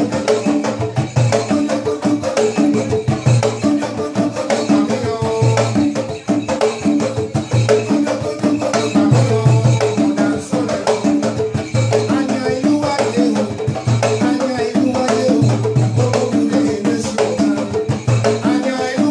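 Afro-Cuban batá drums played together in a steady, interlocking rhythm, with the bells strapped around the large lead drum (the iyá) jingling along with the strokes.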